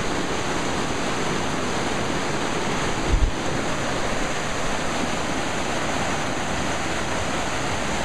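A stream running high, white water rushing over rocks in a steady rush, with one brief low thump about three seconds in.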